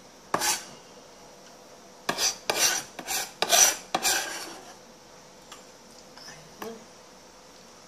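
Knife blade scraping across a plastic cutting board, sweeping chopped vegetables: one short scrape, then a quick run of about five loud scrapes, followed by a few faint taps.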